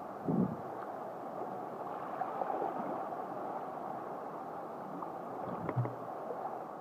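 Water gurgling and swishing along a sea kayak's hull as it glides through eddying water, with a couple of dull knocks, one about half a second in and one near the end.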